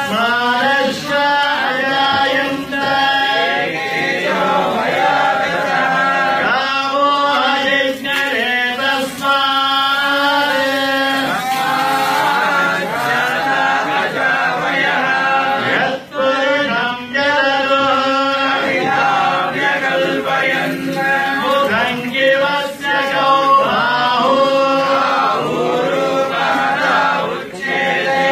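Several male voices chanting a devotional hymn together, in sustained melodic phrases, as at a temple abhishekam.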